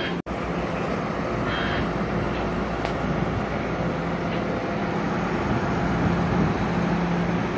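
Metro-North BL20GH diesel locomotives rolling past with their engines running: a steady engine drone with a low hum under it.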